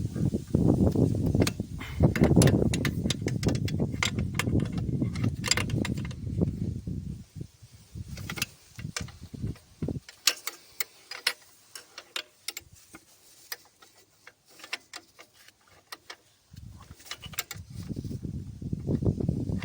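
Scattered sharp clicks and light rattles, like small metal parts or tools being handled, over a low rumbling noise that fades out after about seven seconds and comes back near the end.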